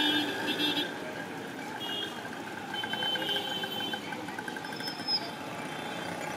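Busy city street traffic, with auto-rickshaws, cars and motorbikes running past. Several short vehicle-horn honks and beeps sound over it, the first and loudest right at the start and shorter ones a couple of seconds in.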